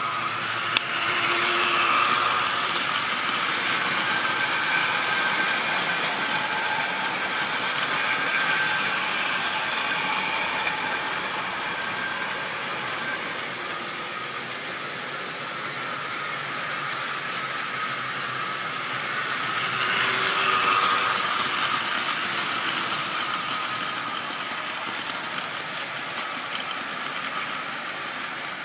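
Model railway train running round the track: a steady electric-motor whirr with the wheels running on the rails, swelling louder twice as it comes near, once early and again about twenty seconds in. A single sharp click just under a second in.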